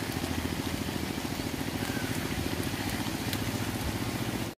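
A small engine idling steadily, with a fast, even chugging.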